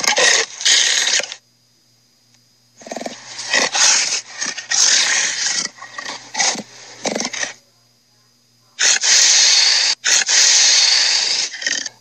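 Cartoon Tyrannosaurus roar and growl sound effects, played back through a laptop's speakers. There is a short roar at the start, a broken series of growls and snarls in the middle, and one long, steady roar near the end.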